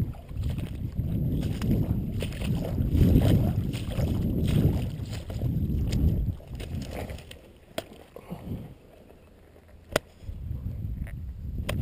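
Wading through shallow water and soft mud, sloshing and splashing heavily for about six seconds, then quieter, with a few sharp clicks near the end.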